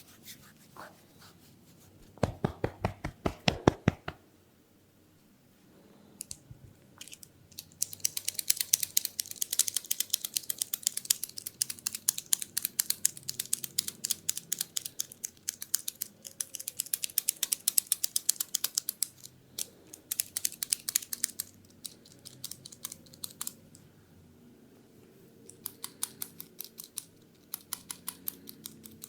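Head massage heard close up: a quick run of firm taps about two seconds in, then long bursts of fast, crisp scratching and crackling clicks as fingers work through the scalp and hair.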